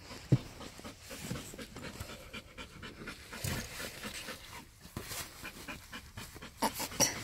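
Eurasier dog panting hard after a long walk. A single sharp click about a third of a second in.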